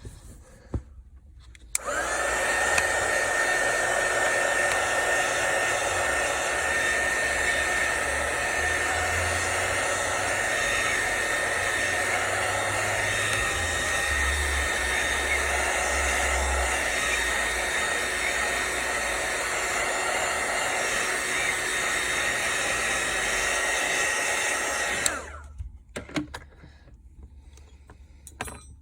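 Hot-air gun blowing steadily with a high whine from its fan, switched on about two seconds in and off near the end, heating the edges of a phone screen to soften its adhesive.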